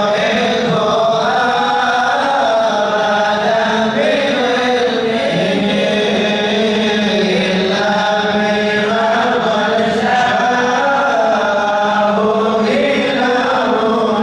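A group of male voices chanting an Arabic qasidah together into microphones, unaccompanied, in long unbroken melodic lines.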